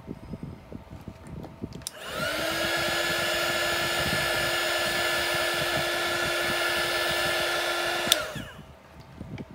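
Small handheld heat gun switched on about two seconds in, its fan spinning up to a steady whine with a rush of air as it blows over wet resin. It clicks off about eight seconds in and winds down quickly.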